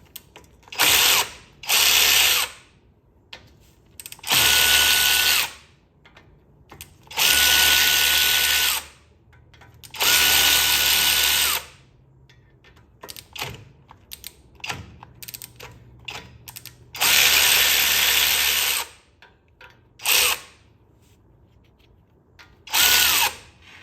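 A power tool spinning a socket on the hub's fasteners in about eight short runs of one to two seconds each. Several runs carry a steady high motor whine.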